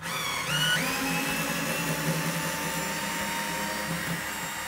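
Cordless drill-driver running in reverse to back a screw out of an aluminium shower-frame profile. Its motor whine rises in pitch over the first second as it spins up, then holds steady.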